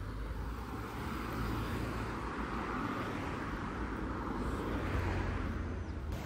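Car road noise: a steady low rumble with a hiss of tyres and air that swells and eases.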